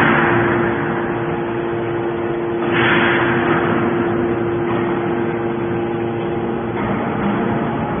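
Hydraulic scrap metal baler running: the steady hum of its hydraulic pump and motor, with a louder rushing hiss that fades in the first second and comes again about three seconds in.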